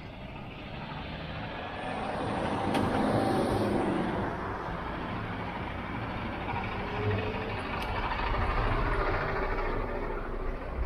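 Refuse collection truck's engine running as the truck turns and drives past close by. The sound swells about two seconds in and again near the end.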